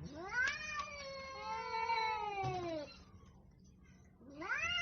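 Angry cat yowling: a long drawn-out yowl that rises, holds and sinks in pitch over about three seconds, then a second yowl begins near the end.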